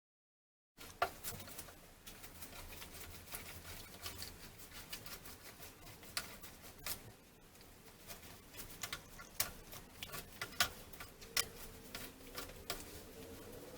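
Sandpaper being worked by hand on a rusty metal hose fitting: irregular scratches and sharp clicks, starting abruptly about a second in.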